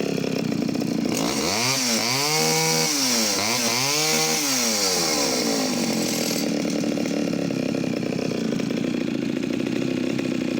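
Vintage Pioneer P25 51cc two-stroke chainsaw running at speed and cutting through a knotty log, with a loud chip-spraying hiss. The engine pitch rises and falls twice during the cut, then the saw keeps running steadily.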